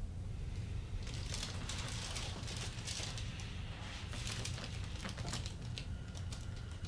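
Rustling and light crinkling of clothing and the treatment table as a chiropractic patient is moved between adjustments, with a few faint clicks over a steady low hum.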